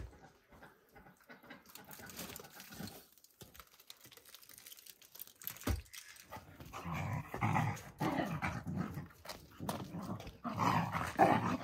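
Dogs vocalising in repeated short sounds, starting about halfway through and getting louder near the end. Before that there are quieter handling sounds and a single knock.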